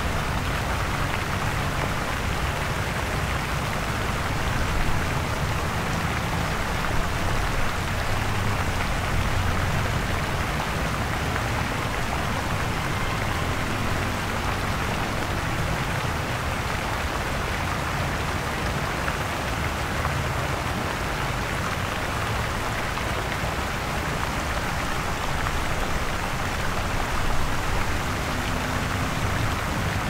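Steady city traffic ambience: a low rumble of engines under an even hiss, with small swells now and then.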